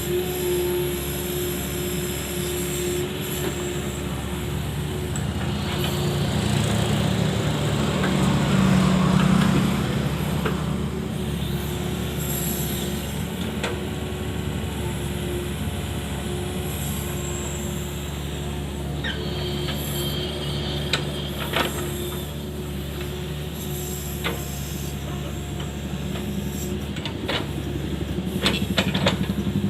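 Mini excavator's diesel engine running steadily. It works harder and louder for a few seconds about a third of the way in, and a few sharp knocks come near the end.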